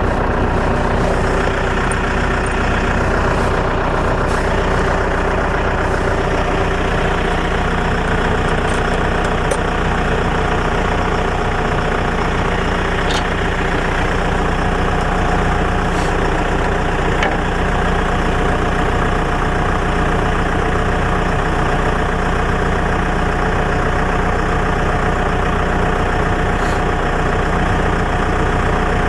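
Tractor engine running steadily, driving a Woodland Mills TF810 PTO wood chipper, with a few sharp ticks scattered through it.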